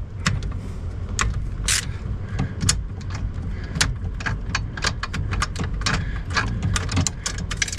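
Irregular small clicks and taps of a screwdriver working a screw loose on a van's ignition switch under the steering column, over a steady low rumble.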